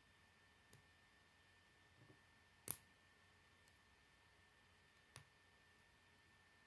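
Plastic K'nex connectors and rods clicking as they are snapped together by hand: a handful of scattered sharp clicks, the loudest about two and a half seconds in and another near five seconds, over a faint steady high tone.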